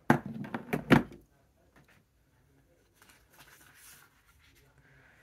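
Plastic Lego bricks clicking and knocking as a built section is pressed together and handled: a quick run of sharp clicks in the first second, then only faint rustling.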